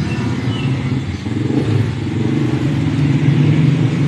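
A motor vehicle engine running steadily, a low even drone.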